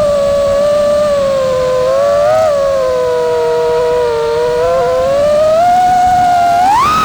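FPV quadcopter's brushless motors whining as one steady tone that slides with the throttle: it sinks slowly to its lowest about four seconds in, climbs again, and rises sharply near the end.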